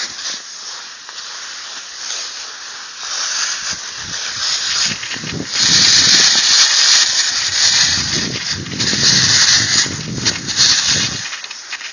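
Cross-country skis swishing over a groomed snow trail, a steady hiss that grows louder about halfway through, with a low rumble underneath that cuts off just before the end.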